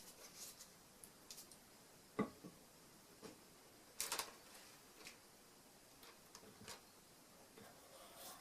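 Faint scattered clicks and taps of small hard objects being handled, the sharpest about two seconds in and a short cluster about four seconds in.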